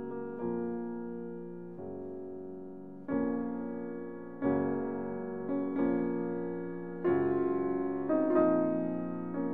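Slow background piano music: soft chords struck about every second and a half, each ringing on and fading before the next.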